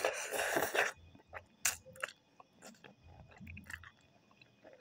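A loud slurp of ramen noodles, about a second long, followed by quieter wet chewing with small mouth clicks.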